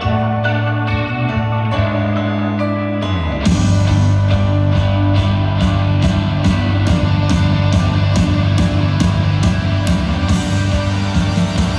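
Live rock band playing an instrumental passage. Picked electric guitar over held chords gives way, about three seconds in, to the full band with drums coming in louder, with cymbals washing in near the end.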